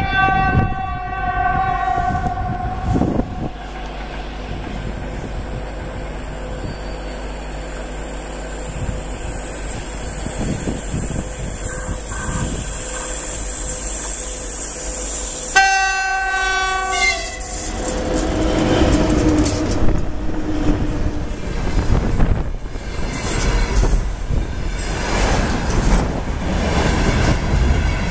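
VL80S electric locomotive sounding its horn twice, once for about two seconds at the start and again about halfway through, as it approaches with a freight train. It then passes close, followed by the running noise and wheel clatter of loaded gondola wagons rolling by.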